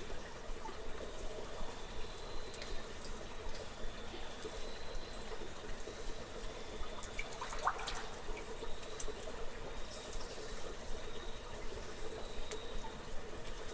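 Cave ambience of water trickling and dripping, with scattered small clicks and a faint, intermittent high thin tone above it. A brief rising chirp sounds about halfway through.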